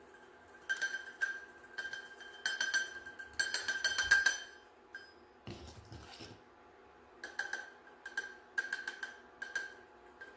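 Small stainless mesh strainer tapped rapidly with a metal utensil in short bursts, light metallic clicks with a ringing tone, sifting activated charcoal powder over wet soap.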